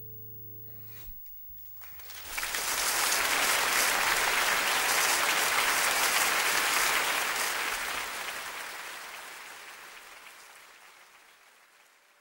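The last chord of an acoustic guitar rings out and stops about a second in. A large concert audience then breaks into applause, swelling quickly, holding, then fading away near the end.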